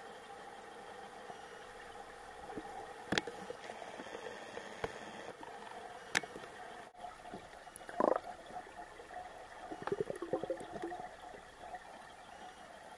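Underwater pool sound picked up below the surface: a steady hum with a few sharp clicks, and bubbles gurgling, loudest about eight seconds in and again in a short cluster near ten seconds.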